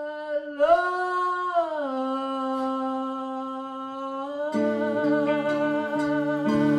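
Live blues band: a single long held lead note with vibrato slides up and back down, then holds steady. About four and a half seconds in, the band comes in underneath with sustained low chords.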